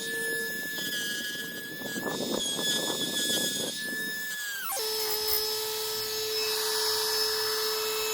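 Dremel rotary tool with a sanding attachment whining at high speed, with a scratchy sanding noise as it works over cured epoxy putty on a fiberglass hull. About four and a half seconds in its pitch drops sharply to a lower steady whine.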